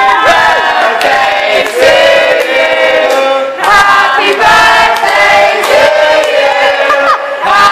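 A group of people singing together loudly, many voices on the same held notes in short phrases of about two seconds each.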